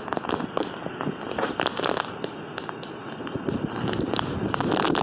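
Hurricane Ian's wind gusting with many sharp cracks and clicks scattered through it, growing louder near the end.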